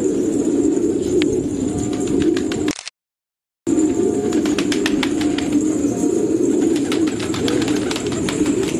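A flock of fancy pigeons cooing together in a continuous, overlapping murmur, with scattered sharp clicks among them. The sound cuts out completely for under a second about three seconds in.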